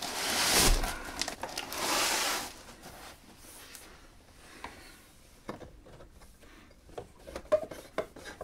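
2.5 mm twin-and-earth electrical cable being unrolled off its coil: two loud swishes of the plastic-sheathed cable sliding and rubbing in the first couple of seconds, then quieter rustles and light knocks as the cable is handled.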